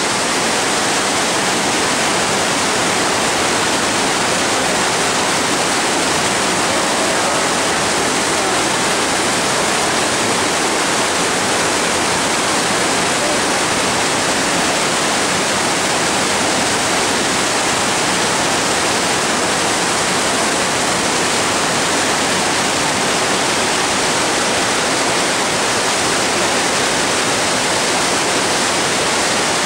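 Mountain creek cascading as white water through a narrow rock gorge: a loud, steady rush of water with no let-up.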